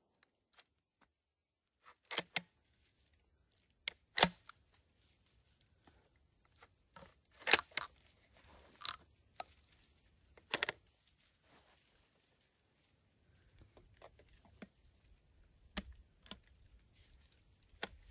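Metal clicks and clacks of a Cobray Terminator single-shot 12-gauge shotgun being handled at its action: about a dozen sharp clicks at uneven intervals, the loudest about four seconds in.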